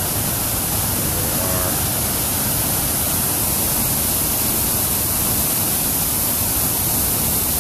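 Sol Duc Falls and its white-water river rushing: a steady, unbroken hiss of falling and tumbling water.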